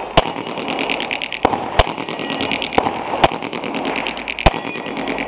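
Pistol firing single shots during a shooting stage, six in all, unevenly spaced about half a second to a second apart, with steady background noise between them.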